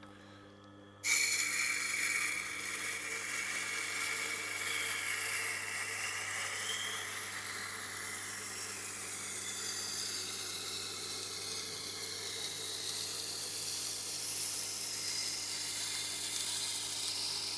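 A knife's steel edge is pressed against the turning wet grinding stone of a Tormek sharpener, a steady scraping hiss that starts suddenly about a second in. Under it the machine's motor keeps up a low, steady hum.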